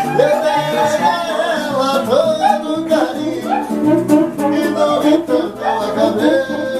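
Background music: a Brazilian pop song with guitar and bass, a melodic instrumental line or wordless vocal over a steady beat.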